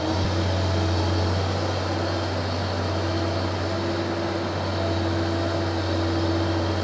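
Feed mixer wagon running empty after unloading: a steady machine drone with a low hum and a few held tones.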